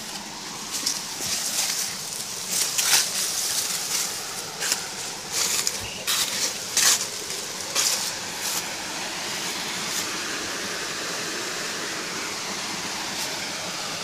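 Footsteps crunching through dry leaf litter and brushing past dry grass stalks for the first eight seconds or so, over the steady rush of a waterfall, which carries on alone after the steps stop.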